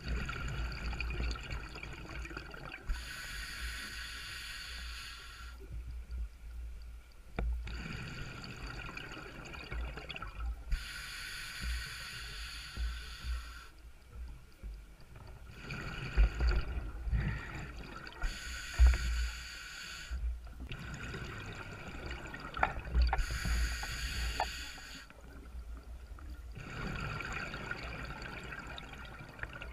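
A scuba diver breathing underwater through a regulator, heard through a camera housing: a couple of seconds of hissing and bubbling recur about every six to eight seconds over a low rumble of water.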